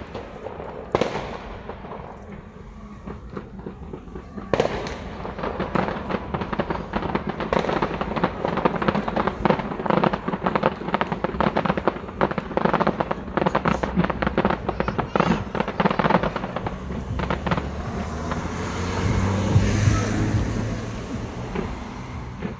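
Fireworks display: a few single bangs, then from about four seconds in a dense run of rapid bursts and crackles, ending in a louder, lower swell near the end.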